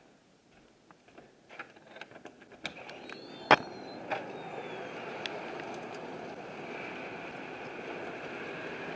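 Faint clicks and footsteps, then a door latch snaps with a short squeak about three and a half seconds in. Strong wind then rushes steadily across the microphone.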